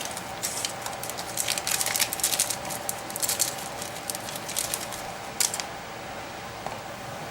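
Irregular light clicks and crackling rustle from hands handling small electronic parts and tools, bunched between about half a second and five and a half seconds in, over a faint steady thin tone.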